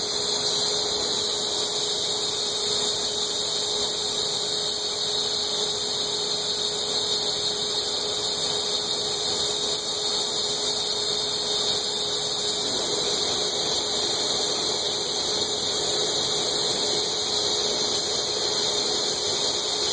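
Steady hiss of burner flames on a glassblowing lathe, with a steady hum underneath.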